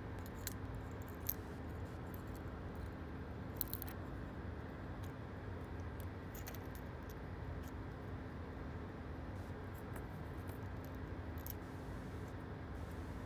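A few small sharp plastic clicks and taps as a small clear plastic pencil-lead case is handled and opened, over a steady low hum.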